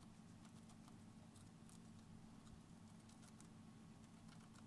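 Syrian hamster chewing a cabbage leaf: faint, quick, irregular crunching clicks over a low steady background hum.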